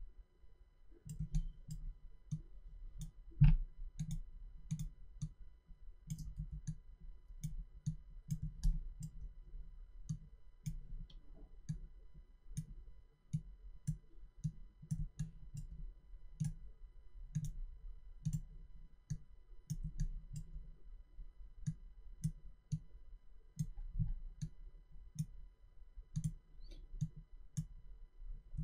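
Faint computer mouse clicks, an irregular few per second, as anchor points are placed one by one while tracing a path with the Pen tool. One sharper click comes about three and a half seconds in.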